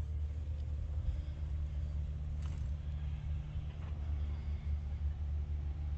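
Steady low rumble of outdoor background noise, with a faint click about two and a half seconds in.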